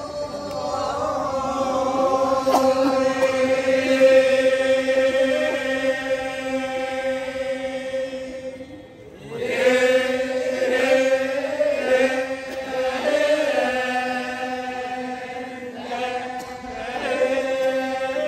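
Torajan badong funeral chant: a group of voices chanting in unison on long, steady held notes. The chanting thins out briefly about nine seconds in, then resumes with more clearly sung syllables on the same notes.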